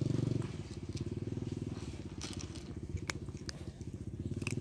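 A cat chewing dry kibble, with a few sharp crunches, over the steady low drone of an engine running at a constant speed.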